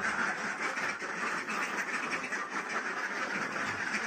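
A large flock of Mojosari ducks quacking continuously, many short calls overlapping into a steady chatter.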